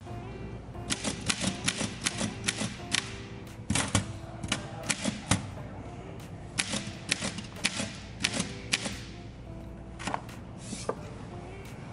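Manual typewriter keys striking the paper in three quick runs of clicks, then a few single strikes near the end, over soft background music.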